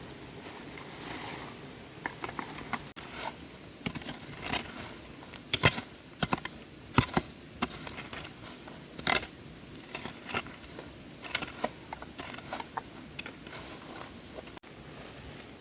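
Irregular clicks and light knocks, a few sharper than the rest, with a faint steady high tone through the middle.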